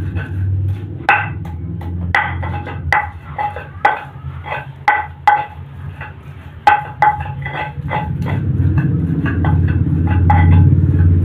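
Pestle pounding and grinding spices in a mortar (ulekan in a cobek): irregular, sharp ringing knocks, a few a second, over a low grinding rumble that grows louder near the end.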